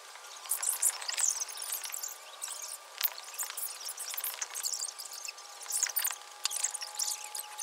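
Evening insect chorus outdoors: many quick, high-pitched chirps overlapping, with a couple of faint steady tones underneath.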